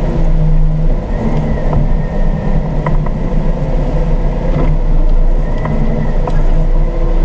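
Car engine idling, a steady low hum heard from inside the cabin, with a few faint clicks.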